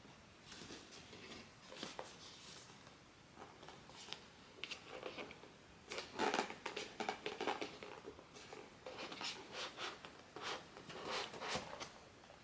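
Hands handling blind-box packaging: irregular rustling, crinkling and small clicks, busiest about six seconds in and again from about nine to eleven seconds in.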